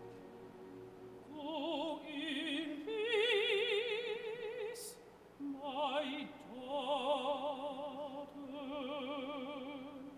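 A woman singing opera with strong vibrato, holding long notes in two phrases with a short break about five seconds in.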